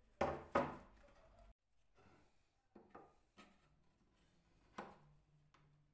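Wooden pieces handled and fitted together on a wooden workbench: a few short knocks, the two loudest close together near the start, then lighter taps and clicks.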